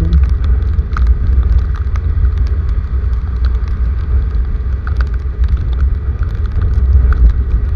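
Rainstorm recorded close up: a steady low rumble with scattered sharp ticks of raindrops.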